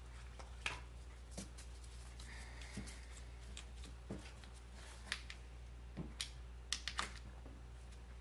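Plastic distributor cap and rubber spark plug wire boots being handled as the wires are moved over to a new cap: scattered small clicks and knocks, with a quick cluster of them near the end, over a steady low hum.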